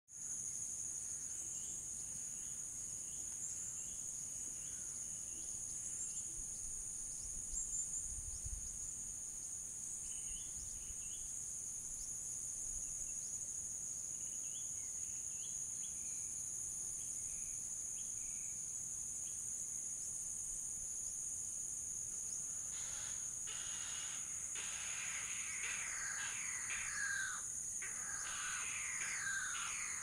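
Steady high-pitched drone of crickets and cicadas, with scattered faint bird chirps. About 22 seconds in, birds start a dense run of louder descending calls. There is a brief low rumble of wind about eight seconds in.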